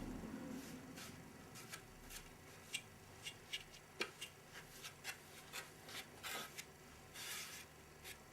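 Faint scattered taps and short rubs of a sponge and hands working over fibreglass mould pieces, spreading PVA release film. About a dozen light ticks come through, with a longer wipe near the end.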